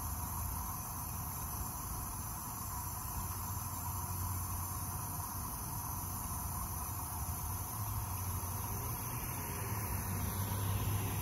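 Steady hiss of water spraying from a garden hose nozzle onto rocks, with a low rumble underneath that grows louder near the end.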